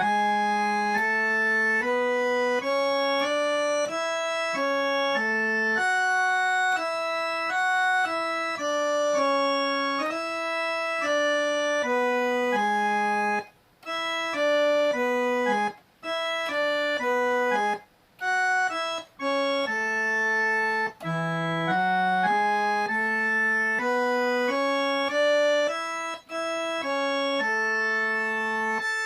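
Electronic keyboard playing an arrasta-pé (forró) solo slowly, one held note at a time, as a melody moving mostly by step, with a few brief breaks between phrases.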